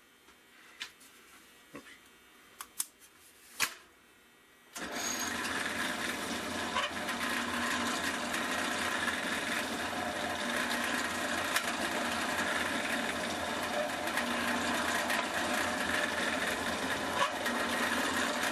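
A few light clicks, then about five seconds in a drill press motor switches on and runs steadily.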